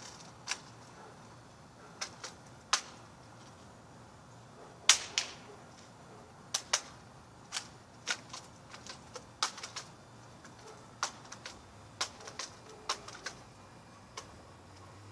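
A series of sharp, irregularly spaced clicks and taps, about two dozen, the loudest about five seconds in.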